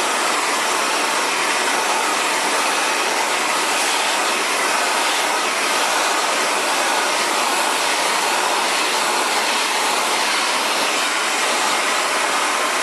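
Xtava Allure 2200-watt ionic ceramic hair dryer blowing steadily, a constant rushing of air and fan with no change in level.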